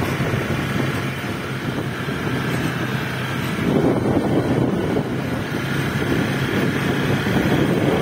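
Motor scooter running while being ridden, with wind rushing over the microphone. A steady low engine hum gives way about four seconds in to a rougher, louder rush of wind and engine noise.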